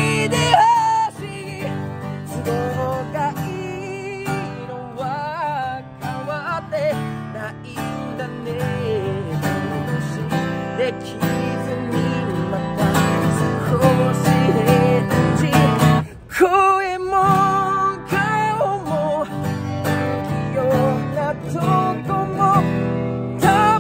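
A man singing live to his own strummed acoustic guitar, with a short break in the voice about two-thirds of the way through.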